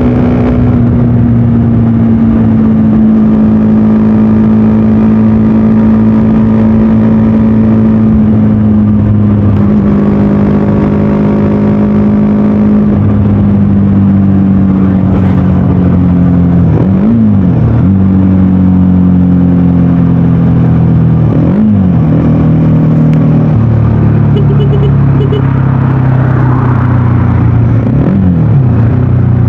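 VOGE 300DS single-cylinder motorcycle engine and exhaust running under way at a steady, slowly falling pitch. The engine note dips sharply and comes back three times, in the middle and near the end.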